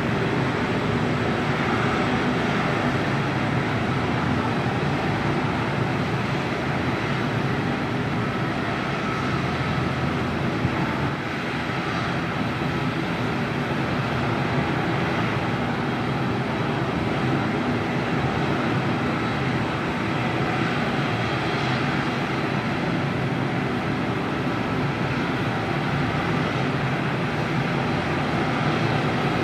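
ATR 72-600 turboprop engine running at ground idle with its propeller turning, a steady drone with a faint high whine, during pushback.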